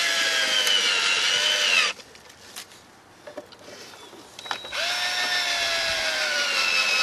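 Cordless drill run twice, each time for about three seconds, its motor whine sagging slightly in pitch under load in pallet wood.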